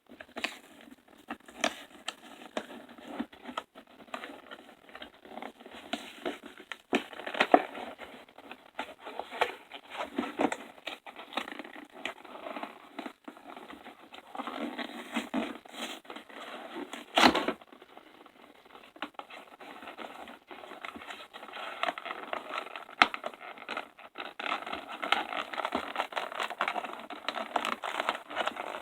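Collectible figure's packaging being opened and handled by hand: irregular crinkling, tearing, scraping and tapping, with one sharp knock past the middle.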